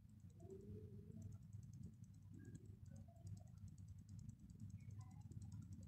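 Kitchen knife dicing cucumber into small cubes on a wooden cutting board: rapid, faint, repeated taps of the blade on the board.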